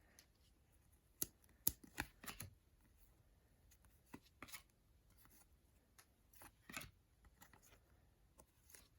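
Trading cards being handled and flipped through: faint scattered clicks and soft snaps of card stock, the sharpest few between about one and two and a half seconds in, with more later.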